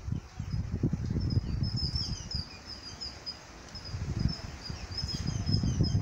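Small birds chirping in quick, short high notes, over an uneven low rumble of wind on the microphone that swells about a second in and again near the end.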